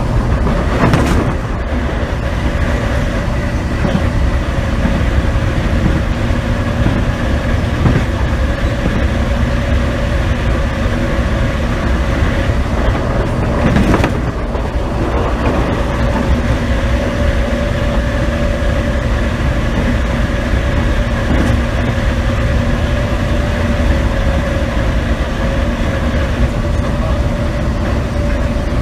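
Running sound inside an MTR East Rail Line Metro-Cammell (MLR) electric train at steady speed: continuous wheel-and-track rumble with a strong traction-motor hum held at a constant pitch. Two sharp knocks cut through it, about a second in and again about fourteen seconds in.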